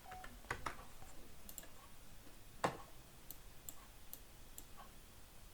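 Computer mouse clicking: a quick pair of clicks about half a second in, a louder single click near the middle, and faint light ticks between.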